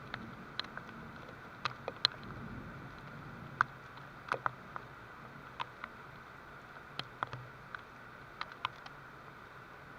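Steady light rain with single drops landing close by in sharp, irregular ticks, about two a second.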